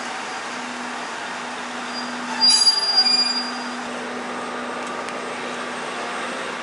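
KiHa 25 diesel railcar idling at the platform with a steady low hum. About two and a half seconds in, a louder burst with a high steady squeal lasts about a second, then faint clicks as the push-button door is opened.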